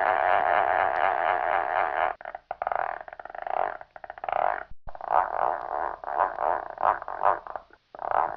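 A series of short vintage cartoon sound-effect stingers, one after another, with brief breaks about two, four, five and eight seconds in.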